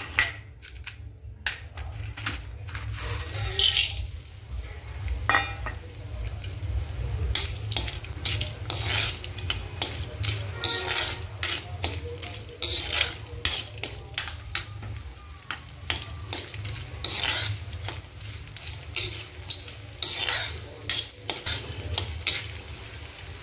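Pieces of edible gum (dink) sizzling as they fry and puff up in hot ghee in an iron kadhai, while a steel spoon stirs them, scraping and clinking against the pan many times.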